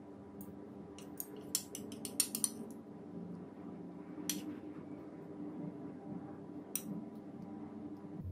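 Metal spoon and fork clinking against a ceramic plate as food is served onto rice: a quick run of clinks about a second in, then single clinks about four seconds in and near seven seconds.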